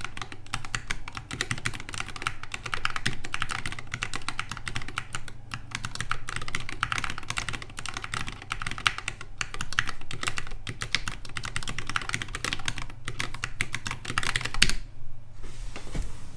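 Fast typing on a Preonic Rev 3 ortholinear mechanical keyboard with lubed Zealios v2 62g tactile switches: a dense, uneven stream of keystrokes. The typing stops near the end and a short soft rustle follows.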